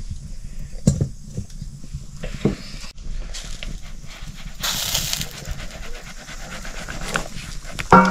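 A few pops from a wood cooking fire, then a plastic food packet being cut open with a knife, crinkling, with a louder rip about halfway through.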